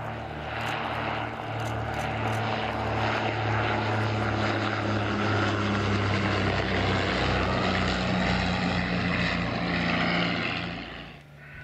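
A twin-engined de Havilland DH.89 Dragon Rapide biplane flying past, its two inverted inline six-cylinder engines and propellers running steadily. The sound grows louder over the first few seconds, shifts slightly in pitch, then fades away near the end.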